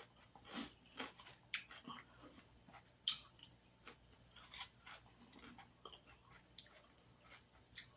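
A person chewing chicken close to the microphone: a quiet, irregular run of short mouth clicks and smacks.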